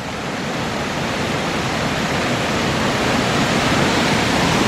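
Gorge stream and waterfall rushing steadily, a constant even roar of falling water that grows gradually louder.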